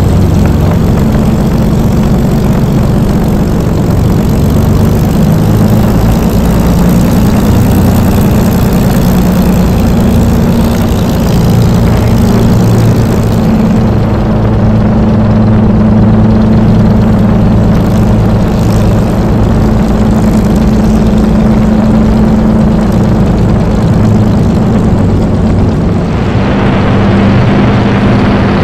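Spitfire's Rolls-Royce Merlin V12 engine and propeller running steadily at low power while the aircraft taxis, heard from the cockpit as a loud, even drone. Near the end the sound turns brighter and more hissy.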